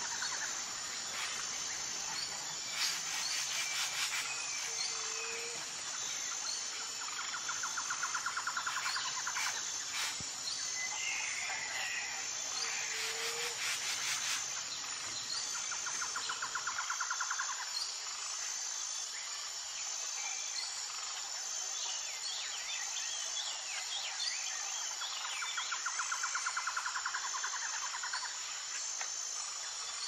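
Tropical forest ambience: a steady high-pitched insect drone, a rapid pulsing call that comes back for a couple of seconds at a time every several seconds, and scattered bird chirps.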